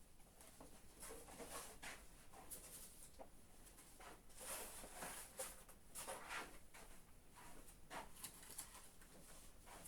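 Near silence with faint, irregular rustling and handling noises scattered through it.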